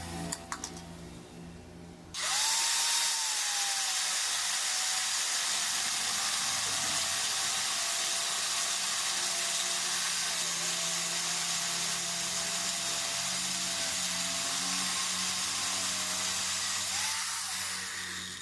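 An angle grinder grinding metal: a loud, harsh, steady hiss with a motor whine that wavers in pitch as the disc is loaded. It starts suddenly about two seconds in and stops near the end.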